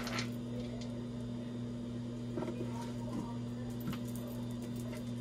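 Chef's knife cutting through smoked sausage on a plastic cutting board, with a few faint taps of the blade against the board, over a steady low hum.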